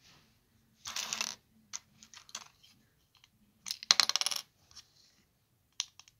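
Plastic LEGO bricks clicking and clattering as they are handled and pressed together, with two bursts of rapid clatter, about a second in and about four seconds in, the second louder, and a few single clicks between.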